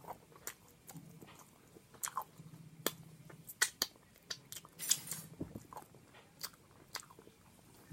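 Close-miked chewing with wet lip smacks and mouth clicks at irregular intervals.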